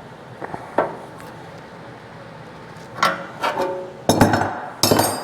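Hand tools and steel parts clinking and knocking together as a nut and stud are snugged into an oil pan's drain plug hole: several sharp metallic strikes with a short ring, a few spaced out early and a quicker cluster near the end.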